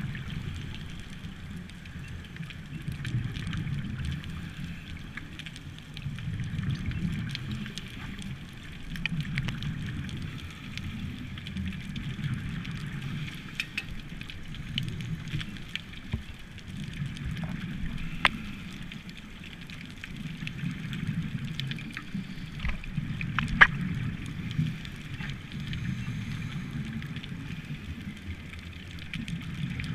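Scuba breathing heard underwater: the low rumble of regulator exhaust bubbles swelling and fading every three to four seconds. Scattered sharp clicks run through it, one louder click about three-quarters of the way through.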